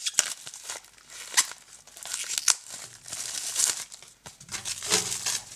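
Special edition CD package being opened by hand: crinkling and rustling with scattered sharp clicks.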